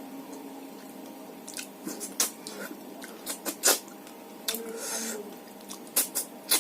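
Close-miked wet chewing and lip-smacking of someone eating rice with fish curry: irregular sharp smacks and clicks, with a short hissing slurp about five seconds in.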